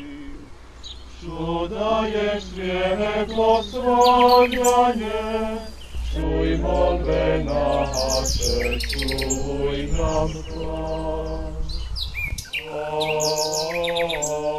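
Men's voices singing a slow hymn together in long held phrases, with birds chirping over them. A low rumble runs under the middle of the singing.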